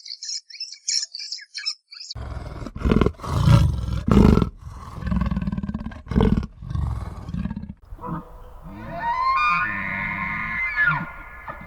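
Short high chirping calls for about two seconds, then a big cat roaring in a run of loud, deep bursts; after that, a higher drawn-out cry that glides up and down in pitch.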